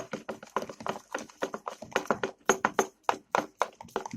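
Homemade slime of PVA glue, clear shampoo and borax water being stirred in a bowl with a spoon: a quick, irregular run of wet clicks and squelches, several a second, as the borax activator sets it.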